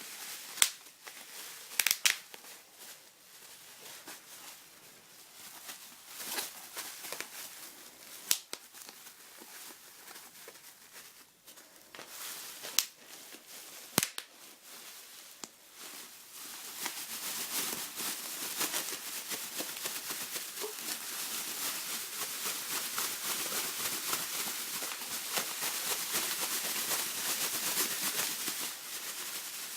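Bubble wrap crinkling as ferrets scramble over it, with a few sharp pops of bubbles bursting in the first half. From about halfway the crinkling becomes constant and busier.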